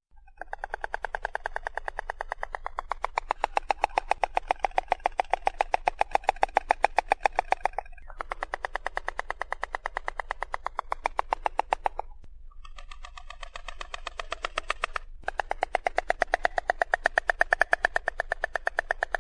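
Stork clattering its bill: a fast, even rattle of sharp clicks, in four bouts broken by three short gaps.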